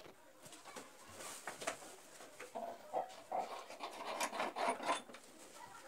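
Scraping and rubbing with scattered light clicks and knocks from hands-on work close by, busiest in the second half.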